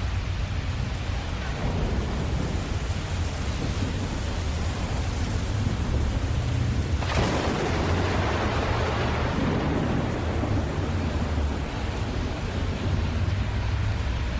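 Steady rain with a low rumble of thunder underneath. About seven seconds in, a sharp thunderclap breaks and fades away over several seconds.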